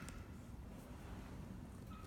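A pet bird falls quiet between its calls. Low background noise fills the pause, with a brief soft note from the bird near the end.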